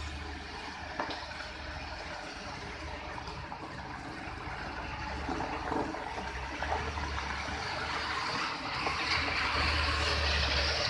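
Loaded diesel goods trucks running slowly round a hairpin bend, a low engine rumble under a broad rushing noise. It grows louder toward the end as one truck passes close by.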